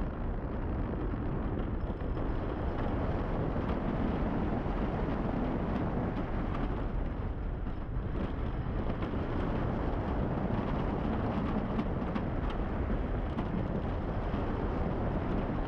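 On-ride sound of the Wildfire wooden roller coaster: the train running along its wooden track, with wind rushing over the onboard microphone, a steady, dense rush throughout.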